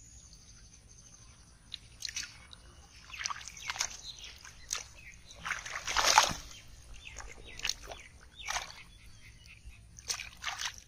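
Hands sloshing and splashing in shallow muddy water while grabbing at a carp: a string of short splashes starting about two seconds in, the loudest near the middle.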